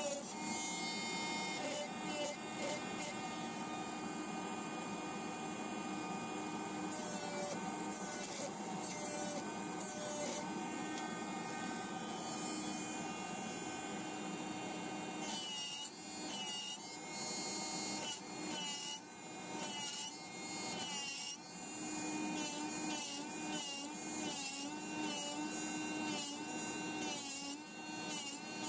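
Electric nail drill with a grinding bit running against the nail, a steady motor whine over the fan noise of a nail dust extractor. From about halfway the pitch wavers and the level dips again and again as the bit works the nail.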